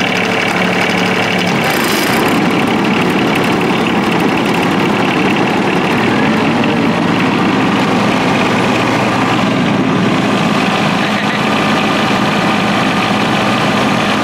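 John Deere 2305 compact tractor's three-cylinder diesel engine running steadily while the tractor drives over grass. The engine note changes slightly about two seconds in.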